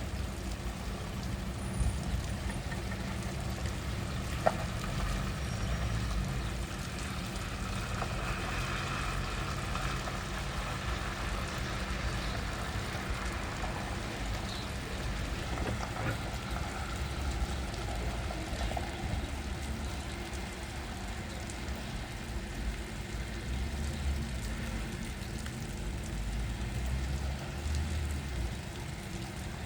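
Steady rain falling in a thunderstorm, with a low rumble underneath, and a single sharp tick about four and a half seconds in.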